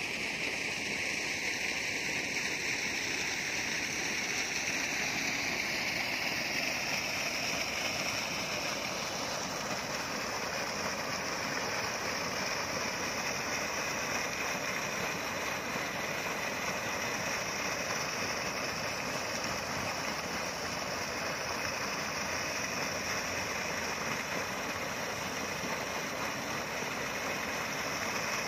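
Sand-and-water slurry gushing steadily from a 168 mm dredge discharge pipe and splashing into a muddy pool of pumped fill.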